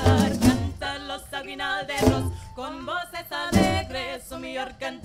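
Parang group singing in Spanish in close vocal harmony, the band thinned to a few sharp accented strums and hits under the voices. A final loud hit right at the end closes the song.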